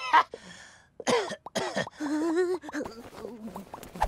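A cartoon vampire character coughing and hacking in a string of short coughs, with a wavering voiced sound about halfway through.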